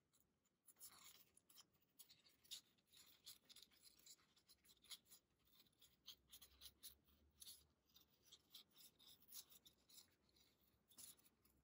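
Paper being torn slowly by hand: faint, small crackling rips and ticks with short gaps between them.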